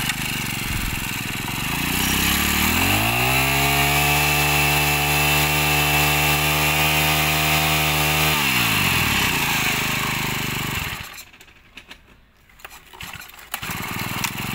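Honda four-stroke brush cutter engine running. It is revved up about two and a half seconds in and held at a steady high speed, then drops back to idle about eight seconds in and stops about three seconds later.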